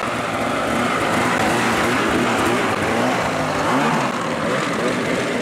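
Arctic Cat Hardcore 162 mountain snowmobile under way, its engine note rising and falling as the throttle is worked, with the track spinning up snow; loudest a little before four seconds in.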